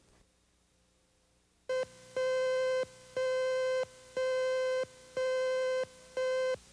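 Videotape leader countdown tone: a short blip, then a steady electronic beep repeated once a second, five times.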